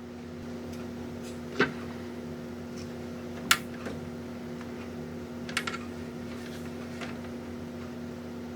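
A steady low electrical or mechanical hum, with three sharp clicks or taps spread across it.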